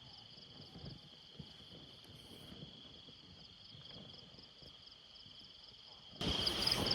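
Faint night insect chorus: a steady high trill with a pulsing note above it, which becomes louder about six seconds in.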